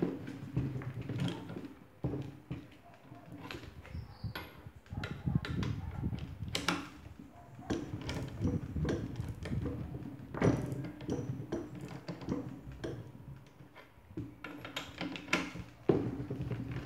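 Hand ratchet turning the forcing screw of a coil spring compressor on a strut, letting the spring's tension off: irregular ratchet clicks and metal knocks.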